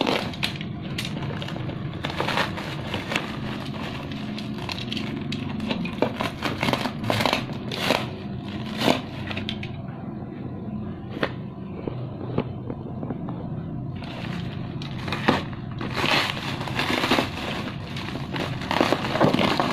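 A parcel being cut and opened with a box cutter: plastic packaging crinkling and scraping, with scattered sharp clicks and rustles over a steady low hum.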